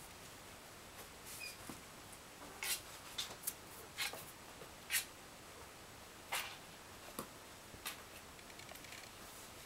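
Kittens' claws scratching and scrabbling on cardboard as they climb and wrestle: scattered, irregular soft scratches and taps, a few sharper ones around the middle.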